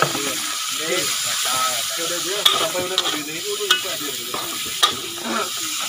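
Raw pork pieces and sliced torch ginger sizzling in hot oil in a steel wok as they are stir-fried, with the metal spatula scraping the pan and clinking sharply against it several times.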